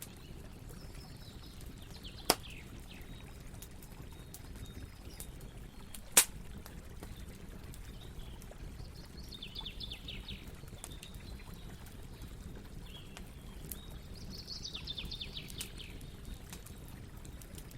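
Campfire burning with scattered crackles over a low steady rumble, and two sharp pops from the fire about two and six seconds in. A high chirping trill comes twice, around the middle and near the end.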